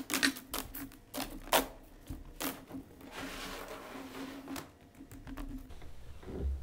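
A pry bar and hammer working loose a sheet of 1/4-inch Masonite on a stage floor: a few sharp knocks and clicks, then a scraping rustle as the loose hardboard sheet is lifted and stood on edge, and a low thump near the end.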